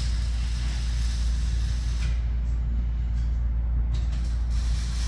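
Auto repair shop noise: a steady low hum, with a hissing sound through the first two seconds and again near the end.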